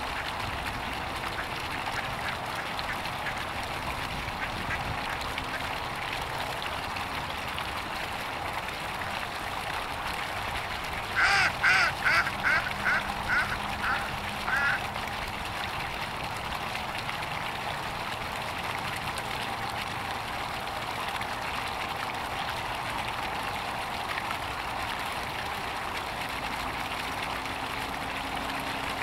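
A duck quacking: about midway, a quick run of about eight quacks over some three and a half seconds, each a little fainter than the last, over a steady background hiss.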